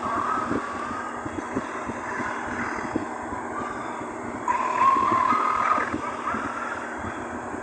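A dense, continuous roar made of a sneeze sound layered many times over, a steady wash of noise with faint whistling tones, growing louder about halfway through.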